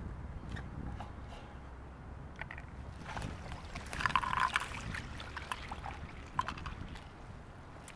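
Water sloshing and splashing in a hole cut in the ice as a bather lowers himself into the icy water. The loudest splash comes about four seconds in.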